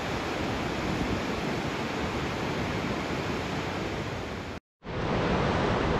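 Steady wind rushing over the microphone, a hiss with a rumbling low end. It drops out completely for a split second about three-quarters of the way through, then resumes slightly louder.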